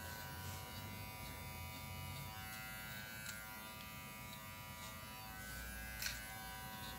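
Propet cordless pet finishing trimmer buzzing steadily as its blade trims the fur on a poodle's paw.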